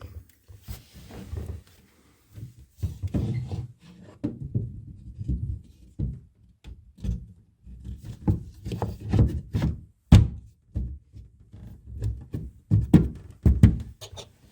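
A run of irregular knocks and thunks as a bath side panel is handled and pushed into place against the bath frame, held by magnetic catches. The sharpest knocks come about ten seconds in and again near the end.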